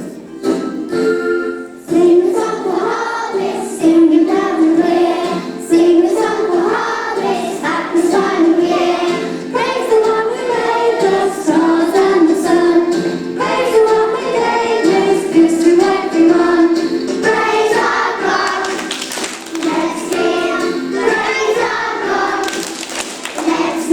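Group of children singing a song together with instrumental accompaniment; the singing comes in about two seconds in after a short instrumental lead-in.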